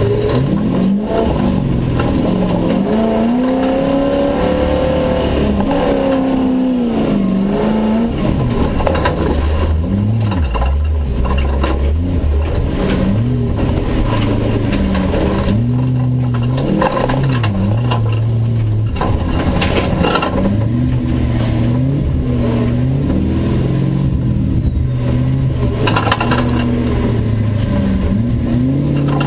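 Toyota Land Cruiser 60-series rally truck's engine, heard from inside the cabin while driven hard over sand. Its pitch climbs and drops again and again as it is revved and shifted, over constant road noise.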